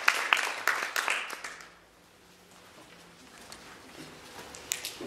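Audience applause that dies away within the first two seconds, leaving quiet room tone with a faint knock near the end.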